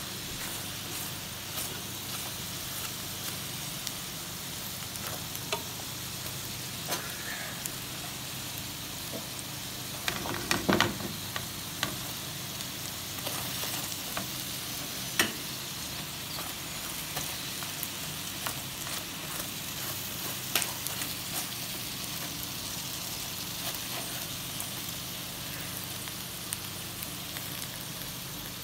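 Sausages sizzling in oil in a frying pan: a steady hiss with scattered sharp pops and spits, and a short cluster of louder cracks about ten seconds in.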